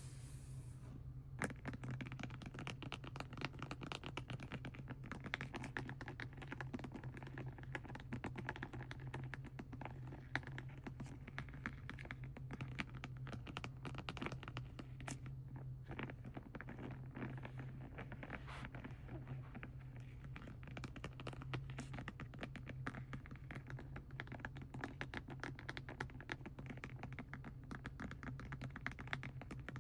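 Rapid, irregular fingernail tapping and scratching on plastic paint packaging, starting about a second and a half in, over a steady low hum.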